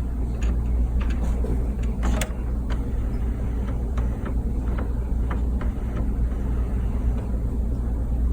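Canon MX870 inkjet printer initializing during power-up: a steady low mechanical hum with irregular clicks from its mechanism.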